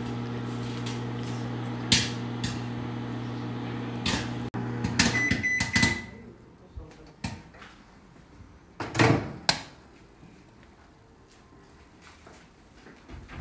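Electrolux microwave oven running with a steady hum while popcorn pops inside a few times. About five seconds in the hum stops and the microwave gives one long beep to mark the end of the cycle. About nine seconds in, two loud clunks come as the door is unlatched and opened.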